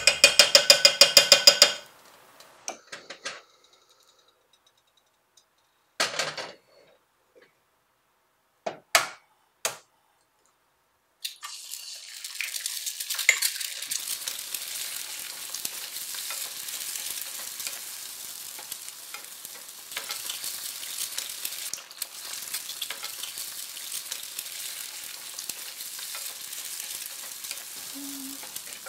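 Food sizzling steadily in a frying pan from about eleven seconds in. Before it comes a short, loud train of rapid ticks at the very start, then a few scattered knocks and clinks of kitchen utensils.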